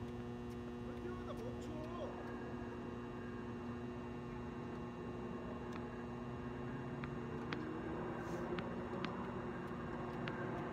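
Steady background hum with a low outdoor noise haze, with a few faint, scattered distant taps.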